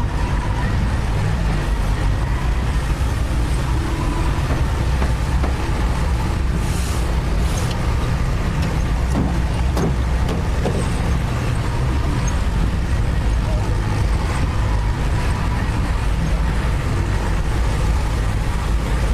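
Heavy construction machine's diesel engine running steadily with a deep drone, with a short hiss about seven seconds in.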